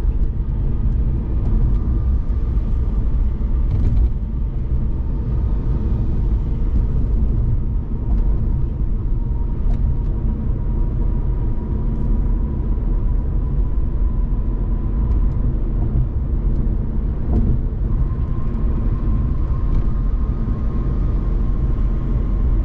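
Steady road noise inside a moving car's cabin on a toll road: a low rumble of tyres and engine, with a faint steady whine.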